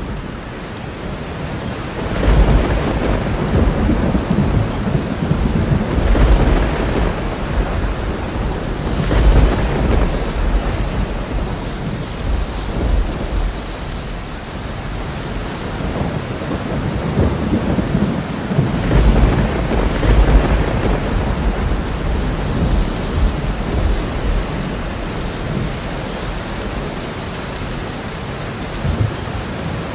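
Thunderstorm: steady heavy rain with rolling thunder, the deep rumbles swelling and fading several times, loudest about 2, 6, 9 and 20 seconds in.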